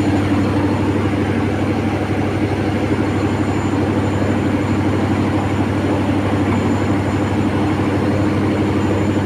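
Cummins diesel engine idling steadily, an even, unchanging low hum.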